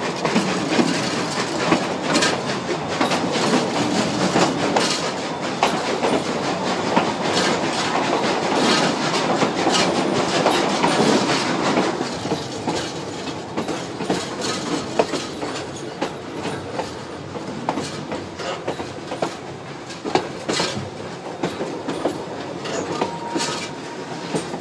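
Durango & Silverton narrow-gauge train cars rolling along the track, a steady rumble with many wheel clicks over the rail joints. It drops somewhat in loudness about twelve seconds in.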